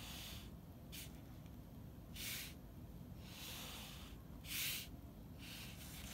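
Felt-tip pen drawing short strokes on paper alongside a steel ruler: a handful of soft, brief scratchy hisses, roughly a second apart, with the loudest a little past the middle.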